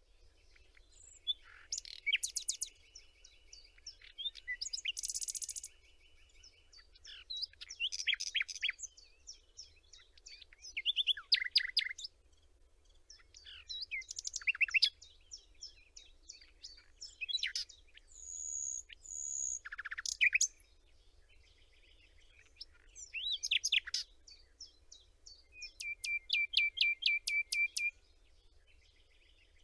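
Songbirds singing: short phrases of high chirps and fast trills, repeating every few seconds with brief pauses between.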